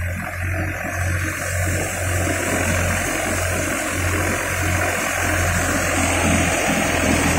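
Farmtrac 45 tractor's diesel engine running under load, driving a wheat thresher by belt pulley: a steady low engine throb beneath the rushing of the thresher's drum and blower fan, which grows louder near the end.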